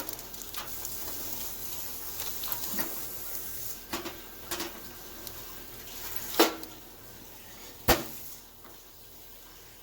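A pan going into a toaster oven: a series of light metal knocks and clicks, with two sharp louder clacks about six and a half and eight seconds in.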